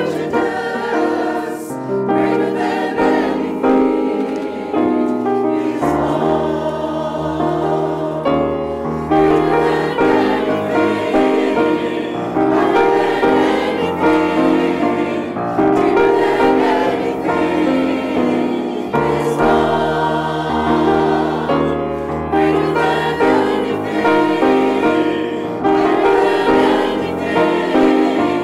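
Mixed choir of men's and women's voices singing a song in harmony, with piano accompaniment.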